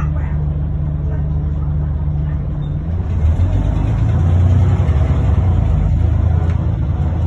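Bus engine running, heard from inside the passenger cabin with a steady low hum; about three seconds in it grows louder as the bus accelerates, and a high hiss joins it.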